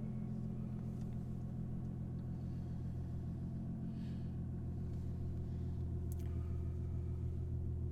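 Infiniti G37S's 3.7-litre VQ37 V6 idling steadily just after start-up, through an aftermarket Motordyne exhaust with resonated high-flow cats.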